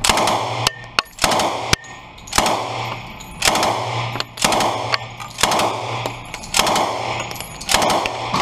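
Thompson submachine gun firing at an indoor range: a quick string of shots in the first two seconds, then single shots about one a second. Each shot echoes briefly off the range walls.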